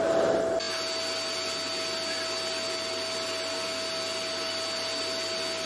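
Canister vacuum cleaner running on carpet: loud at first, then abruptly quieter less than a second in, continuing as a steady whine.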